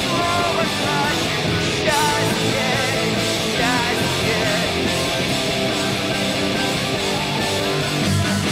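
Rock music with guitar, playing continuously as a soundtrack over the footage.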